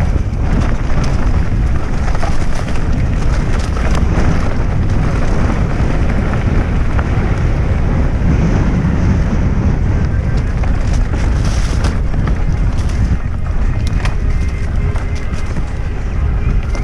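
Mountain bike riding fast down a dirt trail: wind buffeting the camera microphone in a steady low rumble, with tyres rolling over the dirt and frequent small clicks and rattles from the bike over bumps.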